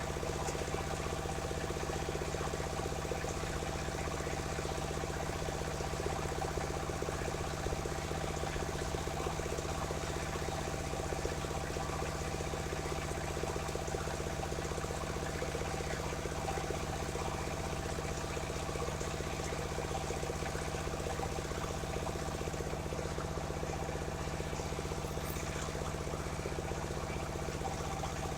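Engine of a portable circular-saw sawmill running steadily at a constant speed, with no change in pitch or load.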